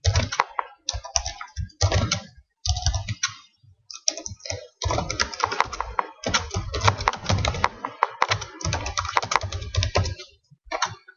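Typing on a computer keyboard: short bursts of keystrokes with brief pauses, then steadier, near-continuous typing from about halfway through.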